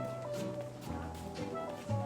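Background music: an instrumental track with held bass notes and a steady beat.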